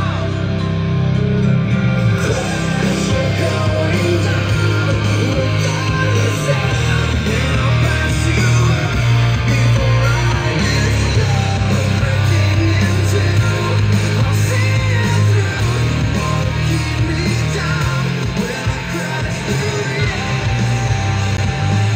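A rock song with singing played loud through an Eltronic 20-14 portable party speaker with a 10-inch driver, with strong bass.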